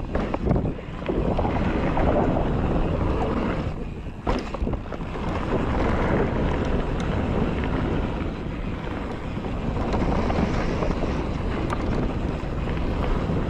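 Wind rushing over the microphone of a camera riding down a mountain-bike trail, mixed with the low rumble of the tyres on the trail, easing briefly about a second in and again around four seconds in.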